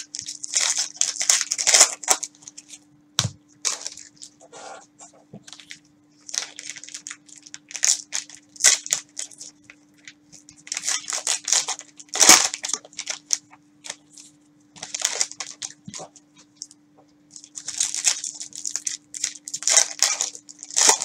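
Plastic wrappers of trading card packs crinkling and tearing as they are opened, with cards being handled, in irregular bursts with short pauses.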